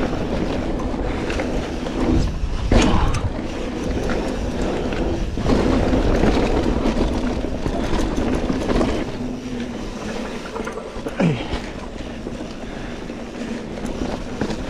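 Mountain bike riding down a dirt singletrack: steady rolling and rattling noise, with a few sharp knocks as it goes over bumps.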